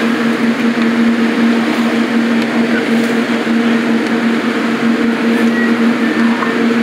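Steady drone of running kitchen machinery with a constant low hum.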